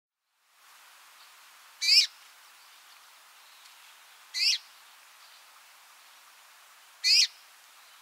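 Red-mantled rosefinch calling three times, about two and a half seconds apart. Each call is short, a quick run of sliding notes, over a faint steady hiss.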